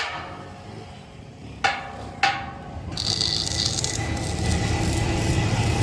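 Two hammer blows on metal a little over half a second apart, each ringing briefly, then a steady rumbling machine noise that grows louder from about three seconds in, with a short burst of hiss at its start.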